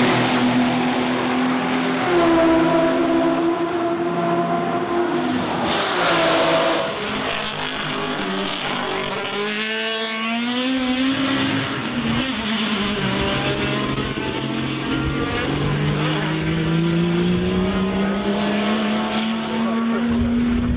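Turbocharged race car engine at full throttle, its pitch rising and falling through several gear changes, dropping briefly about halfway, then climbing steadily through the second half.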